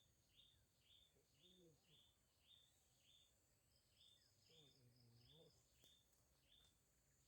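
Faint forest ambience: a short, high chirp repeated evenly about twice a second, over a steady high buzz.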